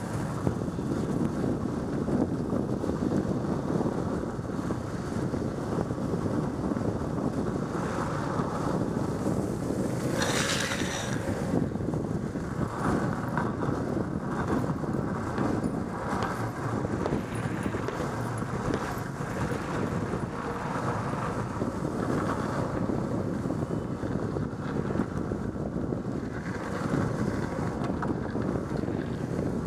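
Steady wind noise buffeting a Contour Roam action camera's microphone while longboarding, over a dense low rumble. A brief brighter hiss comes about ten seconds in.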